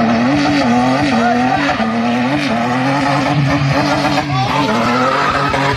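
Car engine held at high revs, its pitch swelling up and down in quick surges, with tyres skidding as the car slides sideways on loose ground.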